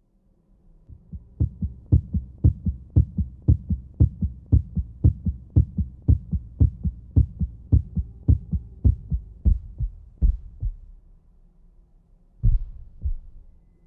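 Heartbeat, each beat a double thump (lub-dub), fast at about two beats a second over a faint steady hum. The beats fade out about 11 s in, then return louder and slower near the end.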